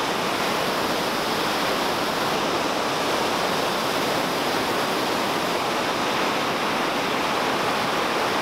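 Storforsen river rapids: a steady, loud rush of white water pouring over rocks between ice and snow.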